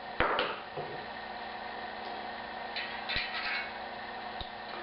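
A sharp hammer tap on a socket, driving the bearing out of a DT Swiss 240 hub, about a fifth of a second in. Quieter metallic clinks follow about three seconds in.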